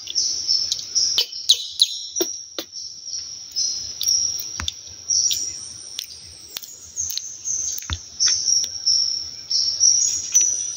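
Forest insects keeping up a steady high drone, with scattered short high chirps and sharp clicks over it.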